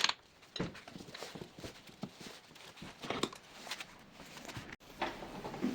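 Scattered light knocks and clicks of tools and metal parts being handled on a workbench, with no power tool running.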